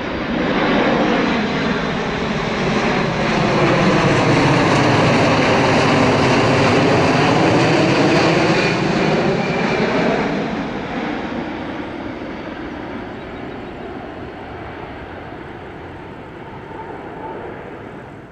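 Jet airliner passing close overhead: the engine noise swells quickly, holds loud for several seconds with a sweeping, phasing tone, then fades away as the aircraft moves off.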